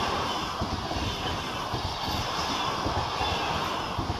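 Passenger coaches of a train running through a station without stopping: a steady rumble and rush of wheels on rail.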